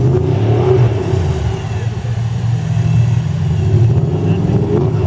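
Jeep Wrangler's engine revving hard as it crawls through deep mud, its pitch rising and falling with the throttle.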